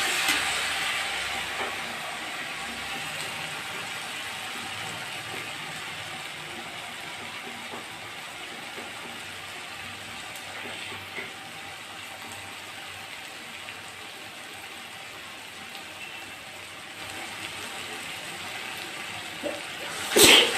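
Chilli chutney sizzling in a hot pan: a steady hiss that slowly eases. A sudden loud sharp noise comes near the end.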